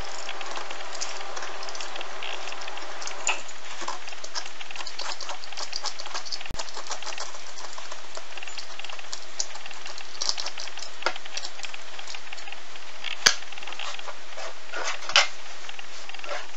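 Vegetable peeler scraping and shaving the hard green skin off an unripe papaya: a dense, steady crackly scraping, with a couple of sharper clicks near the end.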